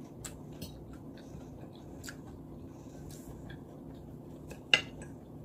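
A woman chewing food, with small wet mouth clicks and light taps of a fork on a plate over a low steady hum; one louder click near the end.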